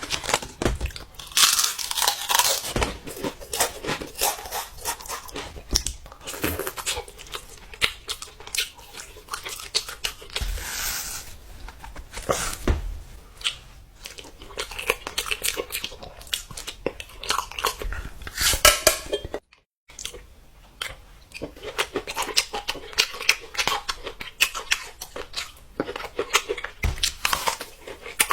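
Close-miked eating: irregular crunching and chewing mixed with tearing and crinkling, with a brief silent gap about two-thirds of the way through.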